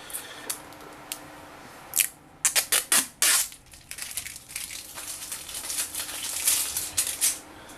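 Protective plastic film being peeled off the back of a phone, a series of crackling, tearing rasps, loudest about two to three and a half seconds in, then quicker, lighter crackles.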